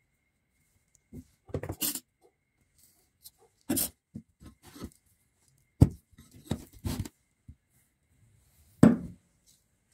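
Irregular knocks and clacks as a small rewound motor stator is handled and shifted in a steel bench vise, with quiet gaps between them; the sharpest comes about six seconds in, and another near the end.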